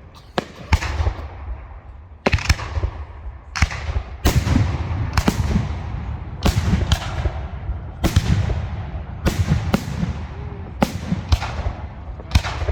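Fireworks display: aerial shells bursting one after another, a sharp bang every second or so, each echoing away over a deep rumble. The bursts come thickest in the middle.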